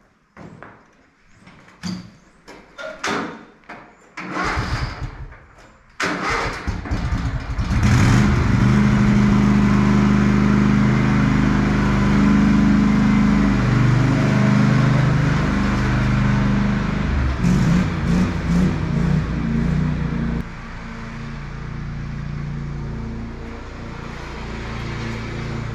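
A few knocks, then a small lawn mower engine starts and runs loud and steady at high speed. About twenty seconds in it drops to a lower, quieter running speed.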